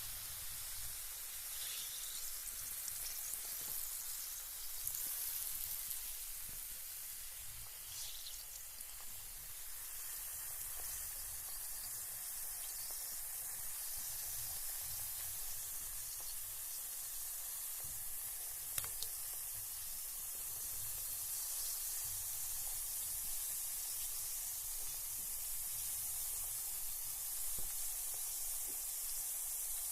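Carbonated bath bomb fizzing in bathwater: a steady high hiss of bubbles with a few faint pops and one sharper tick a little past the middle.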